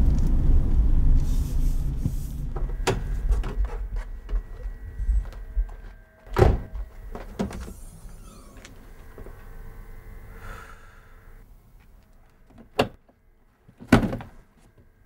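Small hatchback car's engine running low and dying away, then the thuds and latch clicks of its doors and tailgate being opened and shut, with a heavy thud about six seconds in and two sharp ones near the end.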